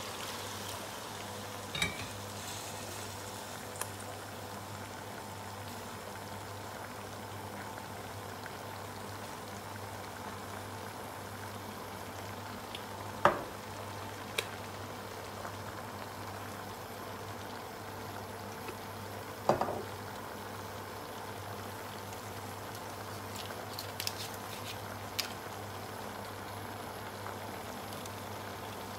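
Pot of shredded cabbage cooking on a gas stove, giving a steady hiss, with a few sharp clicks and knocks; the loudest comes about halfway through and another about two-thirds in.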